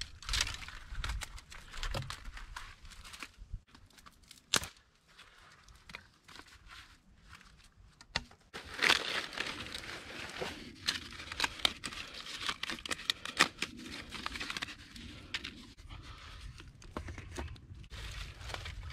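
Dry tinder handled by hand: a bundle of dry grass and birch bark crumpled and torn, with a dense crinkling and rustling from about nine seconds in and scattered sharp snaps.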